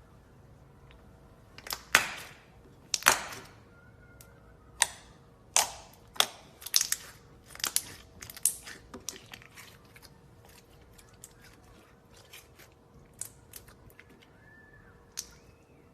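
Clear slime being squeezed and kneaded by hand, giving irregular sharp wet pops and clicks as trapped air bursts, loudest about two and three seconds in, with a run of them a few seconds later.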